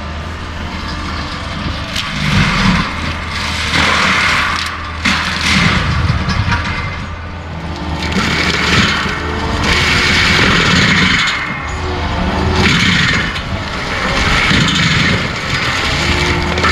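Skid steer with a forestry mulcher head grinding pine stumps: a steady engine hum under repeated surges of grinding and chipping noise every couple of seconds, with a few sharp cracks of wood.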